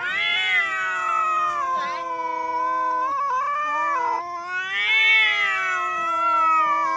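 Domestic cat yowling: long drawn-out wails that waver up and down in pitch, with a short break about three seconds in.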